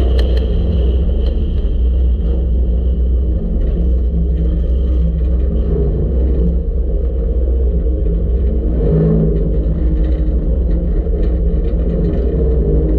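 Front-wheel-drive dirt-track race car's V6 engine running hard under racing load, heard from inside the car as a heavy, steady rumble. The engine note lifts and drops as the throttle is worked through the turns.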